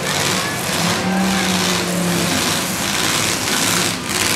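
Several demolition derby cars' engines running and revving together, with one steady engine note held from about one to two seconds in.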